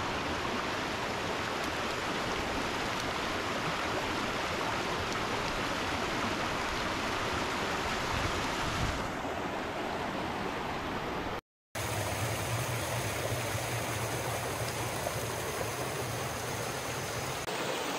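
Steady rushing of a bush stream. It breaks off for a split second about two-thirds through, then goes on with a deeper rumble.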